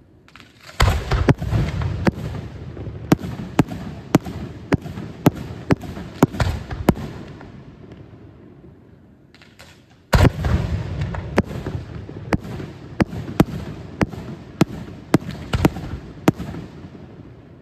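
Fireworks display: two volleys of explosions, each opening with a heavy bang and then a string of sharp cracks, about two a second, over a rolling rumble. The second volley starts about ten seconds in.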